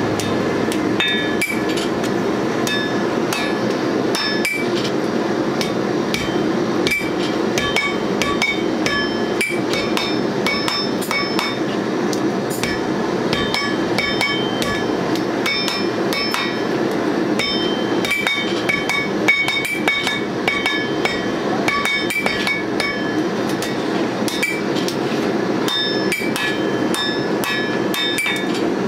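Blacksmiths forging red-hot steel on an anvil: sledgehammer and hand-hammer blows landing in quick, uneven succession, each giving a sharp metallic ring. A steady rushing noise runs underneath.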